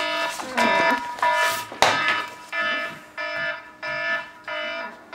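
Smartphone alarm ringing: a bright electronic tone pulsing on and off, about three pulses every two seconds. There is a short knock about two seconds in.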